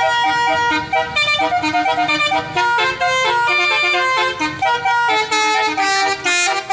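Basuri 'telolet' multi-tone bus horn playing a melody, its notes stepping up and down in quick succession, often several at once.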